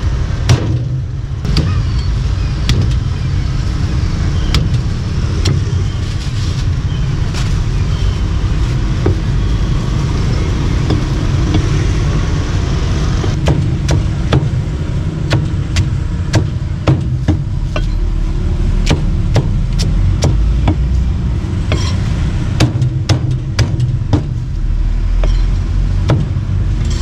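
Meat cleaver chopping through a crispy-skinned roast pork leg onto a thick wooden block: many sharp chops at an uneven pace, coming in quick runs in the second half. A steady low rumble runs underneath.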